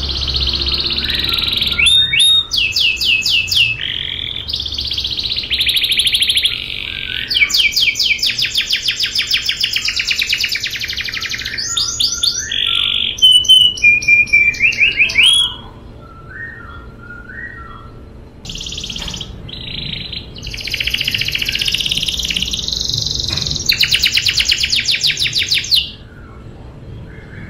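Domestic canary singing long, loud phrases of rapid rolling trills and whistled notes. The song drops to a few soft notes past the middle, picks up again, and stops near the end.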